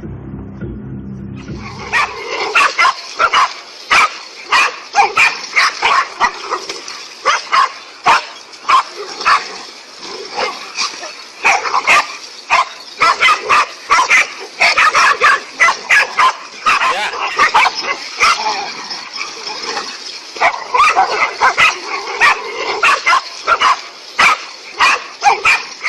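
Animals barking and yelping in a rapid, overlapping chorus of short, sharp calls, several a second, starting about a second and a half in.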